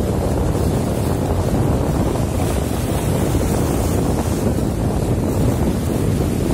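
Steady wind buffeting the microphone, with the rush of sea water around a small boat.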